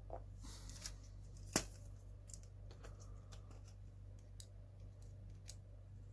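Scattered small clicks and taps of plastic and metal as a Mini 4WD car's chassis and small hand tools are handled during assembly, with one sharper click about a second and a half in. A steady low hum sits underneath.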